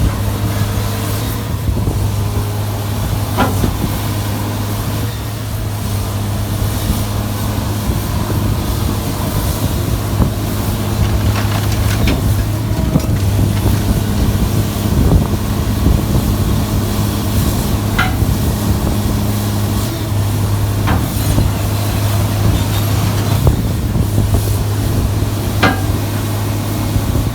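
Sierra 656SL metal shear baler running with a steady, loud low hum. A few sharp knocks ring out, about every six to eight seconds.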